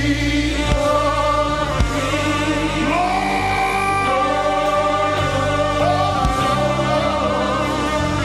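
Live gospel worship music: voices singing together in long held and gliding notes over a band with steady bass and occasional drum hits.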